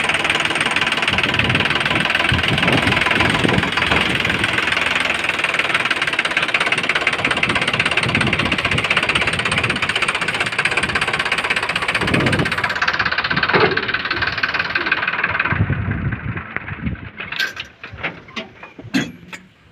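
Sonalika DI 740 III tractor's diesel engine running with a loud, steady clatter. About 15 seconds in the sound drops sharply, leaving scattered knocks.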